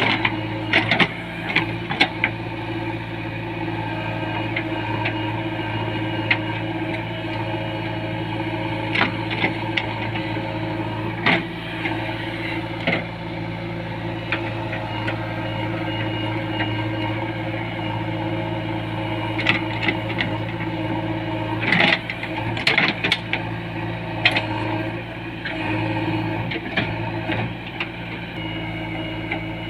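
JCB 3DX backhoe loader's diesel engine running steadily while digging, with scattered sharp clanks and knocks from the working arm and bucket, heaviest about two-thirds of the way through.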